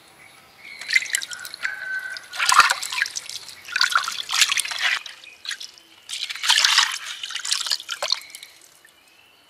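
Water splashing and sloshing as hands rinse a gutted fish in a coconut-shell bowl, in four bursts with short pauses, then water pouring and dripping back into the bowl.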